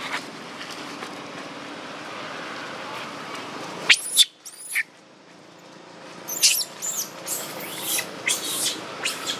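Baby macaque screaming while its mother attacks it. Two sharp, high cries come about four seconds in. After a short lull, from about six seconds on, shrill screams repeat a few times a second.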